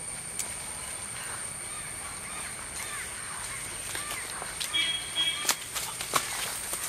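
Bird calls, which the speaker takes for eagles calling because they have noticed people nearby, over a steady high-pitched insect drone. A brief whistled call about five seconds in and a few sharp snaps near the end.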